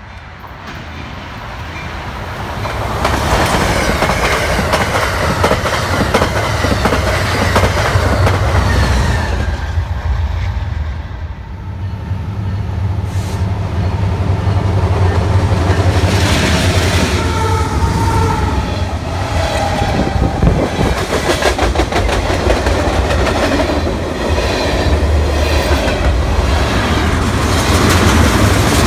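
Diesel freight train passing: the Canadian Pacific locomotive's engine hums low as it comes in, then tank cars and covered hoppers roll by with a regular clickety-clack of wheels over the rail joints.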